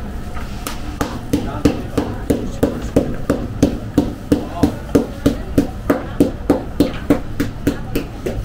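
Sohan being cut at a hand-worked cutter on a steel counter: a steady run of sharp knocks, about three a second, starting about a second in.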